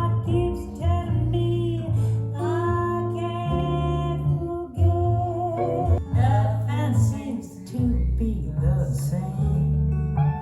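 A song played through B&W 802 Nautilus hi-fi loudspeakers and picked up by a phone microphone in the room: a singing voice with guitar and deep bass notes.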